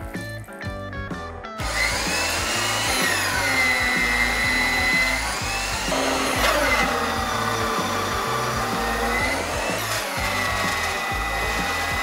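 Thickness planer planing pine boards, starting about a second and a half in: a loud steady cutting noise with a whine that sags and recovers about three times, over background music.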